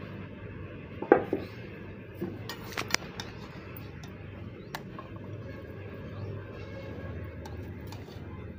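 Metal spoon and large steel cooking pot (karahi) clanking as cooked rice is dished out onto a plate. A sharp clang about a second in is the loudest, a quick run of clinks follows around three seconds, and a few light clicks come later.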